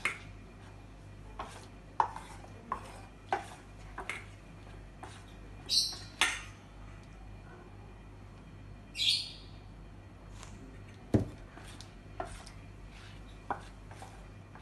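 Metal spoon stirring rice-flour batter in a stainless steel bowl: scattered clinks and taps of the spoon against the bowl, with a few short high-pitched sounds about six and nine seconds in.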